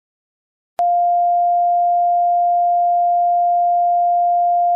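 Steady electronic sine test tone, the reference tone that goes with a colour-bars test card, starting with a click about a second in and holding one unchanging pitch.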